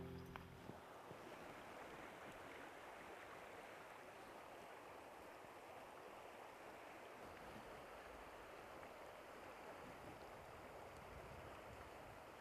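Faint, steady rush of a shallow river flowing over stones, with the tail of background music fading out at the very start.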